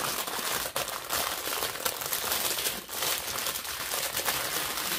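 Clear plastic packaging bag crinkling and rustling steadily as a rolled diamond painting canvas is pushed back into it.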